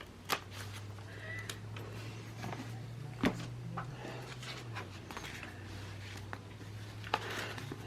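A few sharp taps and clicks of small handling over a steady low hum, as planner pages and sticker sheets are handled on a desk.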